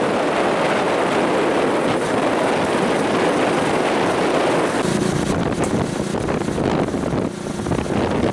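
Wind rushing over the microphone together with the running and road noise of a moving vehicle, a steady loud rush; a deeper rumble comes in about five seconds in.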